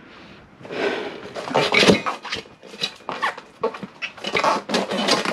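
A person jumping on a motorcycle tire to force its bead over the rim: irregular thumps and rubber scuffs, with effortful grunts and breaths, starting about half a second in.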